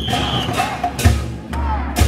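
Festival music for a Chinese-ship float dance: deep drum beats and sharp metal percussion strikes, with men's voices chanting over it. A brief steady high whistle-like tone sounds at the very start.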